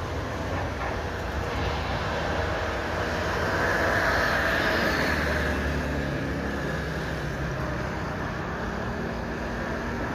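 Boeing 777-300ER's GE90-115B turbofans at takeoff thrust: a steady rushing jet noise that swells about four seconds in as the aircraft passes, then eases off as it lifts and climbs away.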